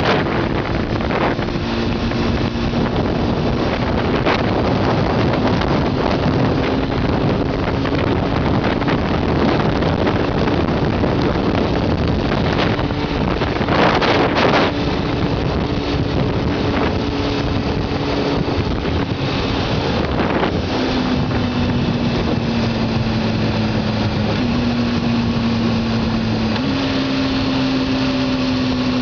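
Honda CBR600F4i's inline-four engine running while riding, under heavy wind noise on the microphone. The engine note holds fairly steady, then steps down and up in pitch several times in the later part, with a louder gust of wind about halfway through.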